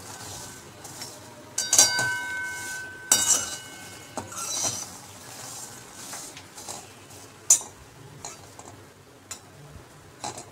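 A perforated steel spatula stirring fox nuts (makhana) in a steel pan, scraping and clinking against the metal. There are a few sharp knocks, and the pan rings for a couple of seconds after the one about two seconds in.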